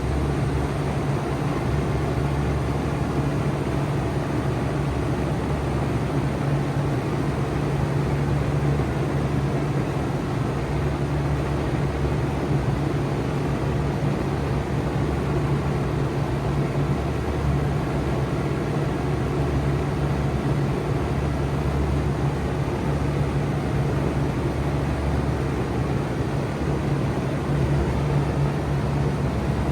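Bard 4-ton wall-hung heat pump running steadily in cooling mode: a steady low hum under an even rush of air.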